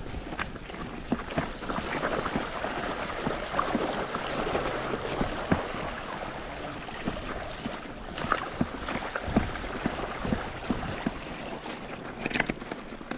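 Mountain bike being ridden over rough, rocky ground: many irregular knocks and rattles over a steady rushing noise.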